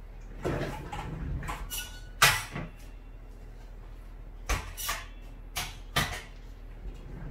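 A whiteboard being handled and shifted by hand: a series of about six knocks and scrapes, the loudest about two seconds in.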